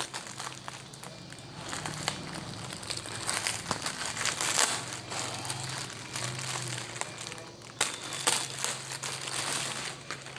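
Parcel packaging crinkling and rustling as it is handled and torn open by hand, with a couple of sharper snaps about eight seconds in.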